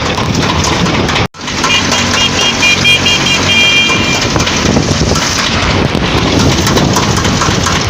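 Loud rumble and wind noise of travel along a road, broken by a brief dropout about a second in. A vehicle horn then sounds a quick string of short high toots ending in a held note.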